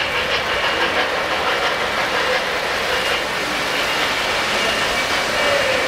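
O-gauge three-rail model freight train running past, its boxcars rolling over the track with a steady rumble.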